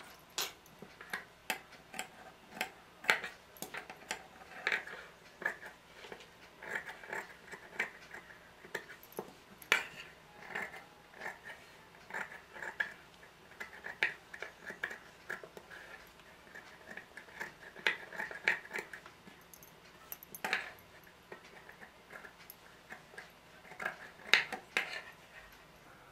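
Large tailor's shears cutting through layered cotton fabric and paper buckram: a run of irregular crisp snips, a few a second, with cloth rustling as the fabric is turned between cuts. A few louder snips stand out, about ten seconds in, about twenty seconds in, and near the end.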